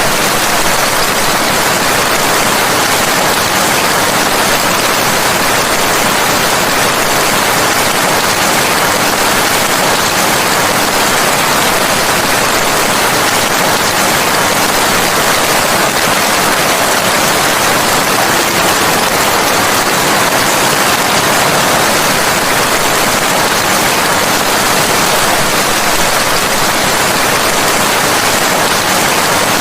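Steady rain: an even, unbroken hiss with no single drops, thunder or change standing out.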